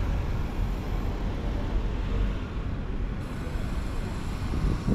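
Steady low outdoor rumble with no distinct events, and faint voices near the end.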